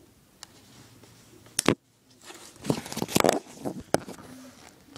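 Handling noises: a sharp click about a second and a half in, then a quick run of small clicks and light rustling as the pocketknife and its packaging are handled.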